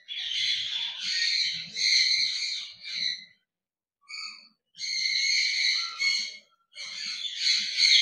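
Parrots calling, high-pitched screeches in bursts of a second or two with short pauses between them.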